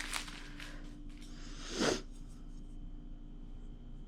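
Packaging rustling and crinkling as a gift item is unwrapped: a few short crinkles in the first second, then one louder rustle just before two seconds in, after which only a faint steady hum remains.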